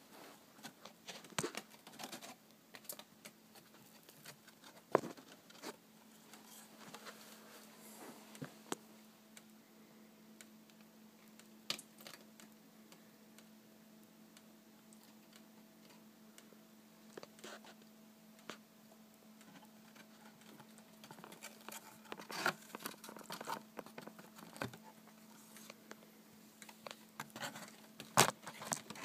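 Cardboard pet carrier box being handled and opened: scattered taps, knocks and rustles of the cardboard, sharpest about five seconds in and near the end, over a faint steady hum.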